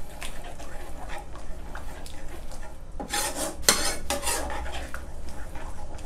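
Metal spoon stirring and scraping a thick salted-egg-yolk and evaporated-milk sauce around a stone-coated nonstick frying pan, with light scrapes and clicks throughout and a louder run of three scrapes about three seconds in, as the salted yolk melts into the sauce.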